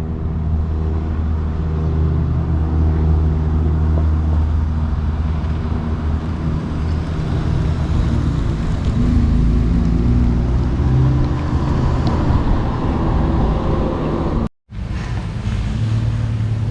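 Jeep engine running steadily with a low hum, its pitch shifting slightly about two-thirds of the way through, with a brief break just before the end.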